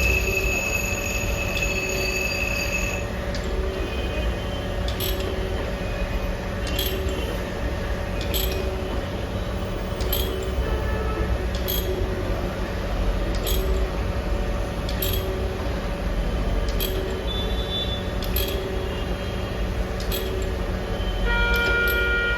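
Jones & Shipman 1400 surface grinder running with a steady motor and spindle hum, and a sharp click about every second and a half as the reciprocating table reverses. A high steady whine sounds over it for the first three seconds.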